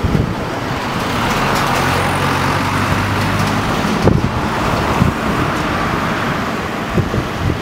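Road traffic passing close by: cars' tyre and engine noise swelling as a vehicle goes past, with a few short thumps near the end.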